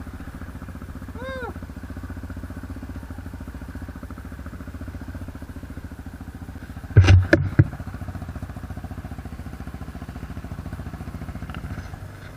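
ATV engine idling steadily with an even pulsing beat. There is a brief loud burst about seven seconds in.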